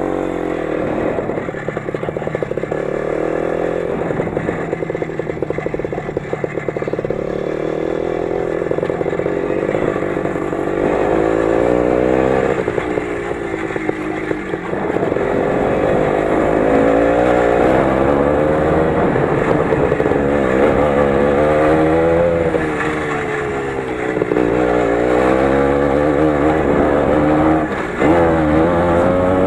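Lider 3.221 motorcycle engine running under way, its pitch rising and falling again and again as the throttle is opened and closed.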